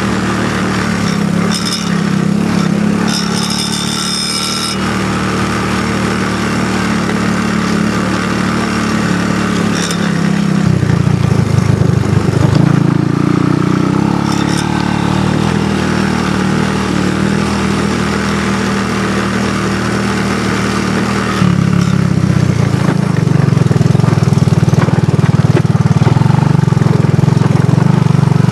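ATV engine running steadily under way on a trail. Its pitch shifts about ten seconds in, and it gets louder about twenty-one seconds in.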